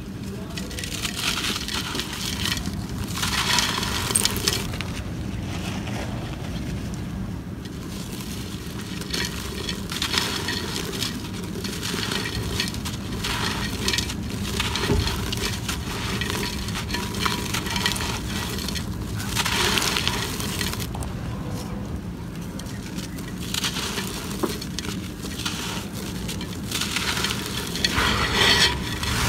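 Dry, stony red dirt crumbling and crunching under bare hands, in repeated grainy bursts. Loose grit patters into a terracotta clay pot. A steady low hum runs underneath.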